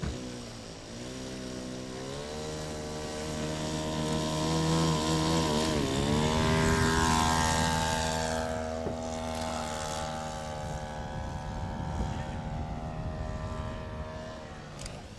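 High-wing RC model airplane's engine and propeller running at full power for takeoff, rising in pitch at first. The pitch swings down and back up about six seconds in as the plane passes close, and the sound is loudest just after. It then runs on steadily and fades toward the end.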